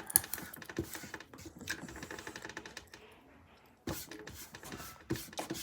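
Crunching of ketchup-flavoured almonds being chewed: irregular crisp clicks and cracks, easing off for about a second past the middle and picking up again near the end.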